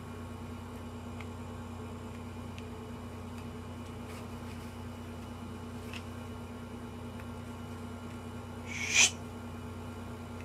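Steady low electrical hum of room tone with a few faint ticks, and one short, sharp puff of breath about nine seconds in.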